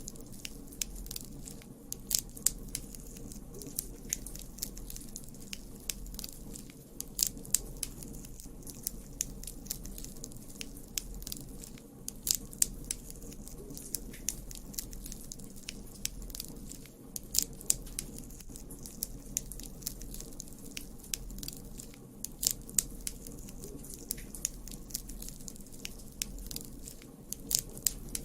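Campfire burning, the wood crackling and popping in sharp, irregular snaps, often a few close together, over a low, steady rumble of the flames.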